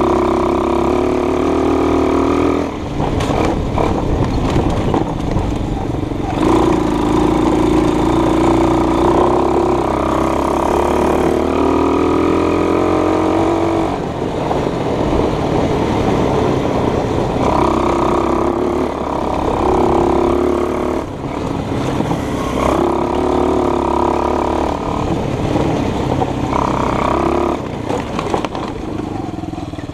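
A vehicle engine running, its pitch rising slowly in stretches with short breaks between, as under acceleration.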